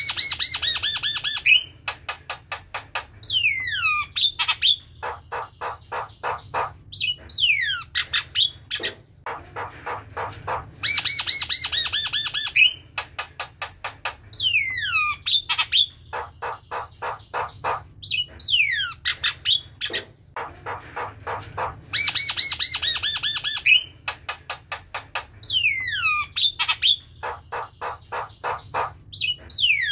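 Javan myna singing: rapid harsh rattling runs of notes mixed with sharp downward-sliding whistles, the same phrase coming round about every eleven seconds.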